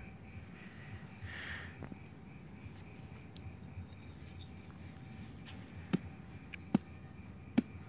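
Crickets chirping in a steady, rapid high trill throughout. About six seconds in, a bladed hand tool chops into the soil three times, each a sharp thud, as a small grave is dug.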